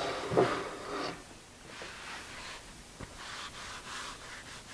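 A steel milling vise scraping and knocking against the mill table as it is lifted off in the first second or so, then a shop rag rubbing across the bare T-slot table.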